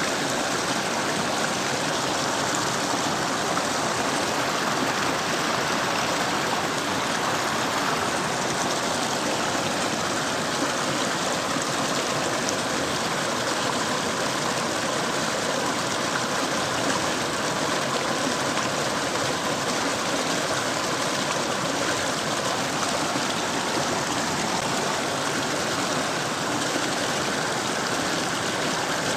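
Mountain stream flowing steadily over rocks, an even rushing of water.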